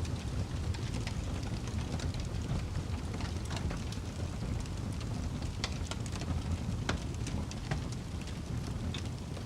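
Wood fire crackling, with scattered sharp pops and snaps over a steady low rumble of burning.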